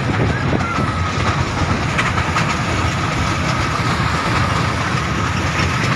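Amusement-park kiddie ride train running: a steady rumble and rattle of the moving cars, with a thin steady whine over it.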